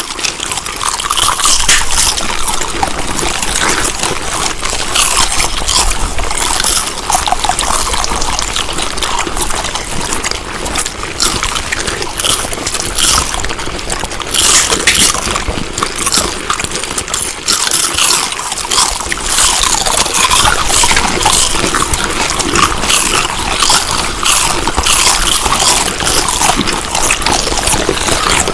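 Close-up chewing of food: a dense, irregular run of crackles and clicks throughout.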